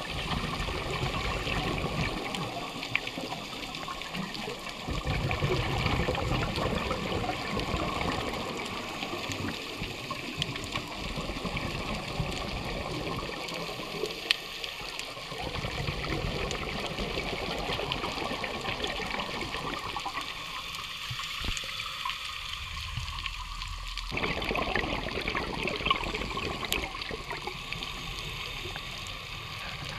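Muffled underwater rushing and gurgling of water, heard through a dive camera's housing, swelling and easing every few seconds.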